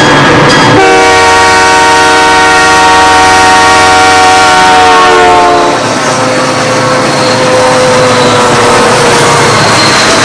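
Diesel locomotive horn sounding one long blast of about five seconds, its chord sliding slightly lower in pitch as it passes, over the loud running of the heavy ore train on the rails. A fainter single tone drifting lower follows.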